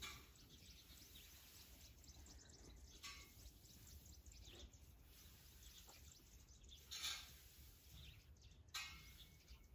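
Near silence, with a few soft, brief rustles about three, seven and nine seconds in.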